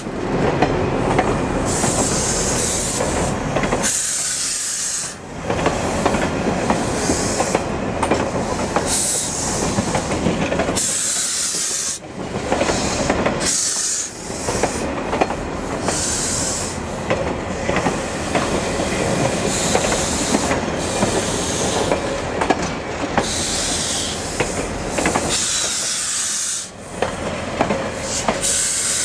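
Ontario Northland Northlander passenger cars rolling past at close range as the train pulls out, steel wheels clicking over the rail joints under a steady rumble and hiss. The sound drops away briefly a few times.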